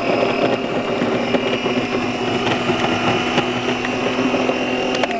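Chef Wiz countertop food processor's electric motor running at a steady high speed as its blade chops vegetables in the bowl, with a constant whine. It is switched off right at the end.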